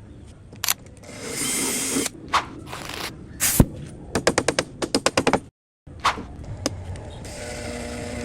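Power drill driving screws into drywall in short runs, with knocks and a rapid run of clicks about halfway through.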